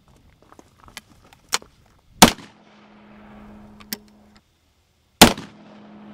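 Two shots from a short-barreled 12-gauge shotgun, about three seconds apart, each preceded by a few sharp clicks.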